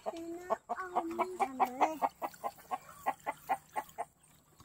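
Chickens clucking: a few short drawn-out calls, then a steady run of short clucks about three or four a second, which stops shortly before the end.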